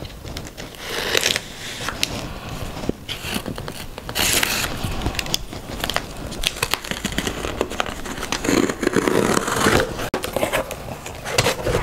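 Packing tape on a cardboard shipping box being slit and pulled open, in several bursts of tearing and scraping with small clicks and crinkling.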